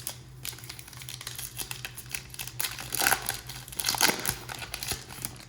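Foil wrapper of a trading card pack crinkling as it is torn open and handled, with louder bursts of crackling about three and four seconds in.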